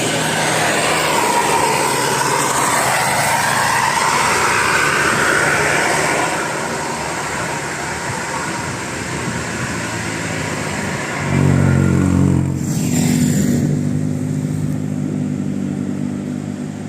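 Bus passing in road noise. About eleven seconds in, a loud low horn sounds for about a second, then a short hiss, and the bus's engine runs on steadily.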